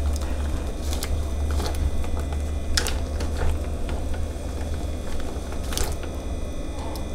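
Low steady hum with a few scattered light clicks and taps.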